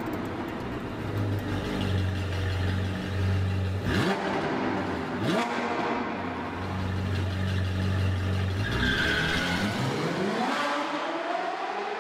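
Sports car engine sound effect: a steady rumbling run, sharp revs about four and five seconds in, then a long rising rev near the end.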